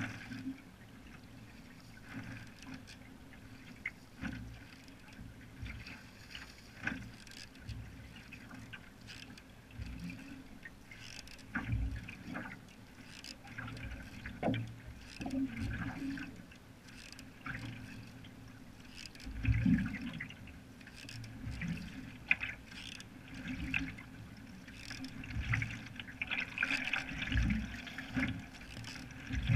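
Canoe paddle strokes: a single-blade paddle dipping and pulling through lake water every few seconds, with splashing and dripping water, and occasional low thumps.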